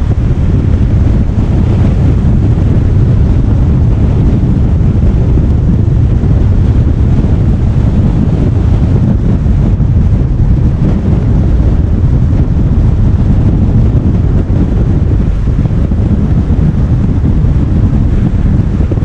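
Steady low rumble of wind buffeting the microphone together with road noise from a car driving at speed.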